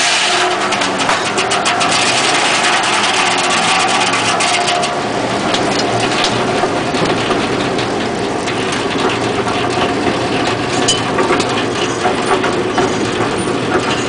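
Home-built circular sawmill running, its blade sawing lengthwise through a log: a loud, steady, rasping rush over the drone of the mill's power unit.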